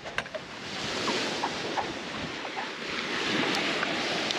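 Surf breaking and washing on the beach with wind buffeting the microphone, a steady rushing noise that grows louder about half a second in.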